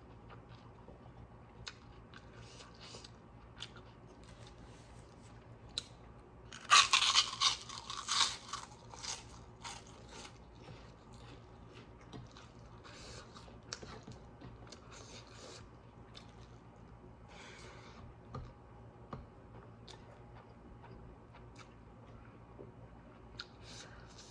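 Close-up eating sounds from a meal of saag greens and local chicken soup: scattered chewing and crunching, with a louder, dense burst of crunching about seven seconds in.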